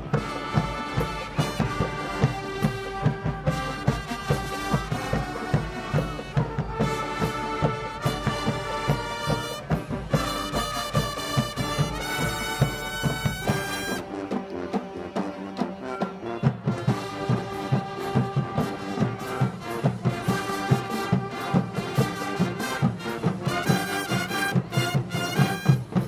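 Marching band playing: brass chords over a drumline keeping a steady beat of drum hits. About halfway through, the deep bass drops away and the horns and drums carry on lighter, before the full band closes out at the very end.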